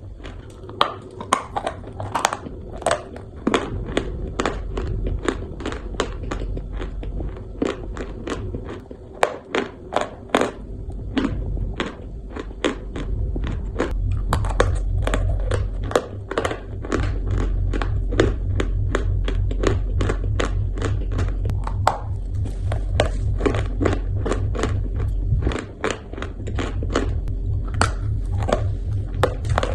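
Close-up chewing of crunchy food: a fast run of sharp crunches and clicks, several a second. A low rumble sits underneath for the second half.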